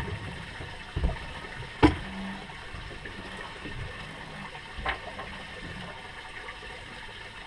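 Knocks and bumps of gear being handled at the stern of a fishing boat, three in all, the sharpest about two seconds in, over a steady low noise.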